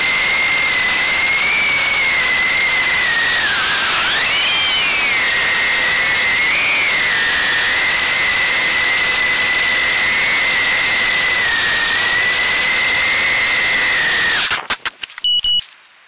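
GEPRC Cygnet 2-inch FPV drone's brushless motors and props whining at high pitch over a hiss, the pitch dipping and rising with the throttle. About fourteen and a half seconds in, the whine stutters and cuts out as the drone crashes into the grass, with a few sputters and a short tone before it goes quiet.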